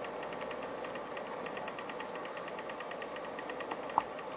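Kit-built spot welder unit running idle: a steady hum with fast, even ticking. One short sharp click comes about four seconds in.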